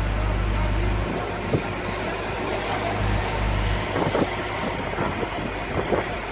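Truck-mounted crane's engine running with a steady low hum while the boom holds a suspended load; the hum drops about a second in and swells again around three seconds. A few short knocks sound near the middle and end.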